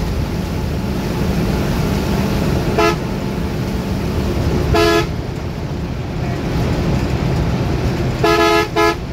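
Bus horn tooting in short blasts: once about three seconds in, a longer blast near five seconds, and a quick double toot near the end, over the steady rumble of the bus engine and road noise.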